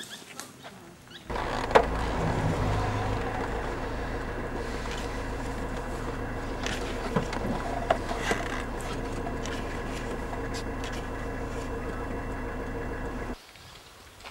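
A steady engine hum at a constant pitch starts suddenly about a second in and cuts off suddenly near the end, with a few sharp clicks over it.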